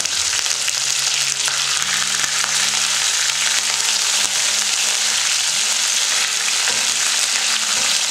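Curry leaves, green chillies and mustard seeds sizzling loudly and steadily in hot oil in a nonstick kadai, stirred with a wooden spatula: the tempering (tadka) stage of the dish.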